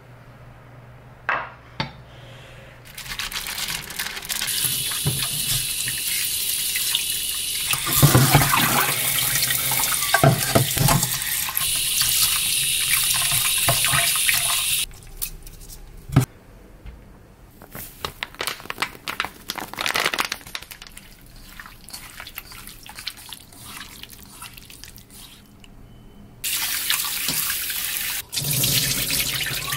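Kitchen tap running into a stainless-steel sink while raw oysters are rubbed and rinsed by hand in a metal colander. The water stops about halfway through, leaving softer handling sounds and small clinks, and runs again near the end.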